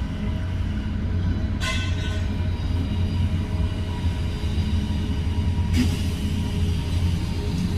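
Crawler bulldozer's diesel engine running steadily with a deep drone, with two short metallic clanks from the machine, one about a second and a half in and one near the end.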